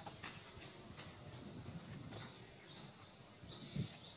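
Forest ambience: a steady high hiss, with short rising chirps that start about halfway through and repeat about twice a second. Soft low rustles throughout, and a brief louder one near the end.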